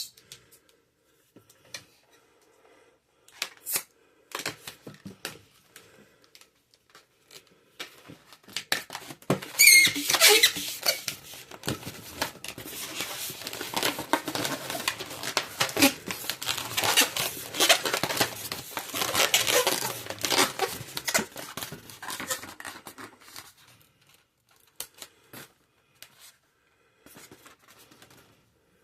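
Latex twisting balloons being handled and twisted: a long run of rubbery rubbing and squeaks from about ten seconds in until a little before the end, with scattered light clicks and taps before and after.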